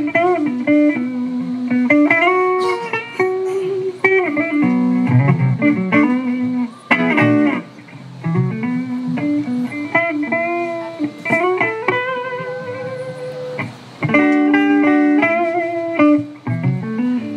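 Live band music: an electric guitar plays lead lines with bent, sliding notes over drums.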